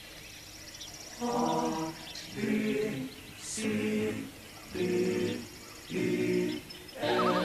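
An a cappella choir of low voices singing a slow run of held chords, six in all, each under a second long with short gaps between them.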